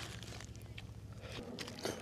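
Faint crinkling and small crunchy clicks of a plastic bag and pieces of cooked chicken being handled, over a low hum.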